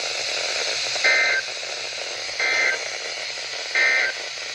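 Three short bursts of EAS/SAME digital data tones, the end-of-message code, sent a little over a second apart over NOAA Weather Radio, with steady radio hiss underneath. They signal the end of the warning broadcast.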